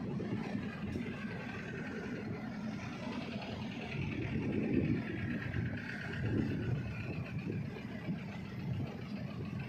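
Ro-ro car ferry's engines running as it manoeuvres, heard across the water as a steady low rumble with a faint whine that drifts slowly in pitch.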